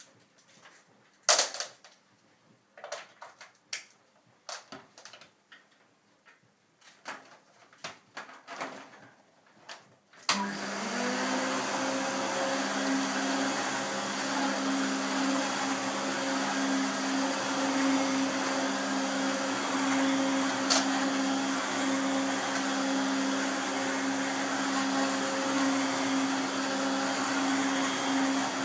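Scattered clicks and knocks for about ten seconds, then an Electrolux upright vacuum cleaner switches on. Its motor spins up quickly and runs steadily with a hum.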